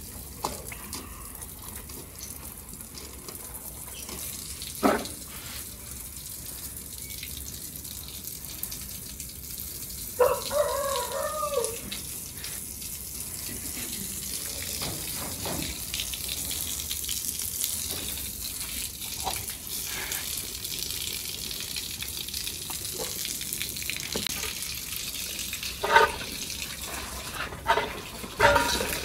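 Water spraying from a garden hose and splashing onto a wet concrete floor, a steady rushing hiss. A few brief louder sounds break through it, one a short voice about ten seconds in.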